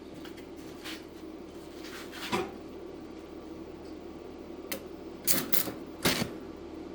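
A few sharp metallic knocks and taps, one about two seconds in and a quick cluster near the end, over a steady low hum: steel and tools knocking in a welding shop.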